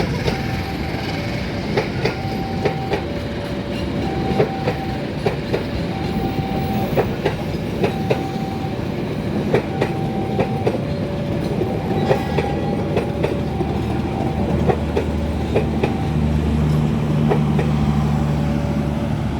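A passing train, its wheels clicking over the rail joints, over an electronic warning signal that alternates between a higher and a lower note about once a second. A low steady drone comes in near the end.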